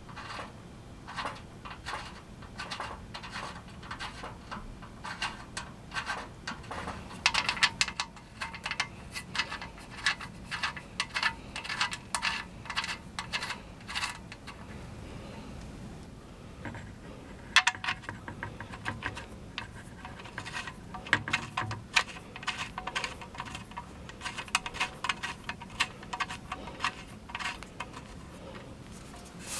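Metal studs being turned by hand into the legs of an aluminum fire table, giving many irregular small metallic clicks and clinks.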